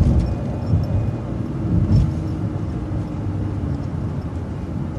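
MCO ViewMaster transit bus driving along, a steady low rumble of engine and road noise, with a light knock about two seconds in.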